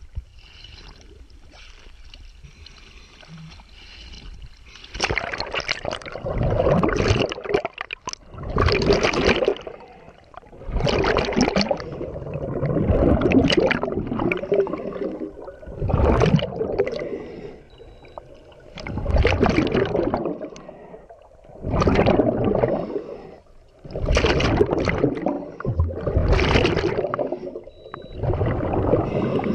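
Scuba regulator exhaust bubbles rushing out underwater in bursts every two to three seconds, one with each exhaled breath, after a few seconds of faint water sound.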